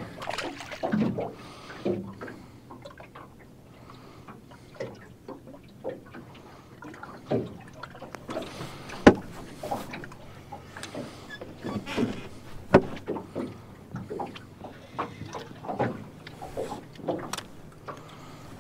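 Wind-driven waves slapping and knocking against the side of an aluminum jon boat, in irregular taps and thumps, with one sharp knock about nine seconds in.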